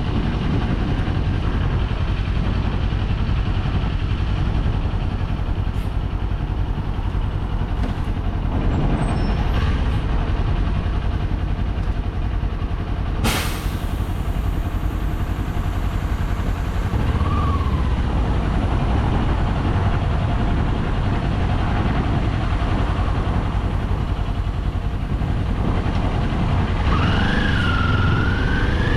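Kawasaki Z400 motorcycle's parallel-twin engine running steadily at low revs, heard from the bike. About thirteen seconds in there is a single sharp click. Near the end the revs rise as the bike accelerates.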